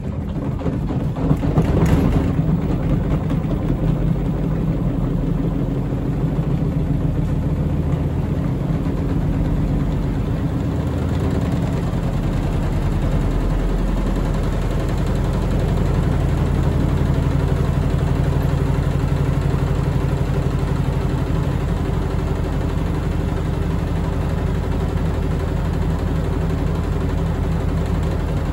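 Front-loading washing machine on a fast spin: motor and drum speed up over the first couple of seconds, then run loud and steady with a low rumbling drone. There is one knock about two seconds in.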